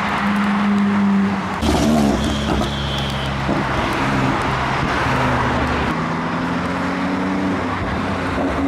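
Cars passing on a motorway with engines running over tyre and road noise, a red Ferrari 458 Spider among them. After a cut about two seconds in, a Porsche 911 approaches with a steady engine note that rises slightly later on.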